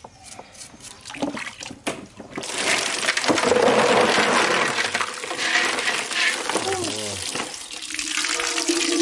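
A few clicks and knocks, then about two seconds in running water starts gushing and splashing steadily as freshwater mussels are rinsed of mud in a basin.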